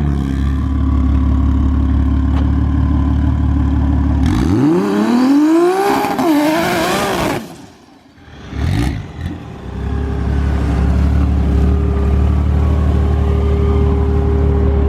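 A high-horsepower drag car's engine at a dragstrip: a steady low drone, then about four seconds in a hard launch with the revs climbing fast and dipping a few times at the gear changes before the sound falls away. A steady low engine drone returns near the end.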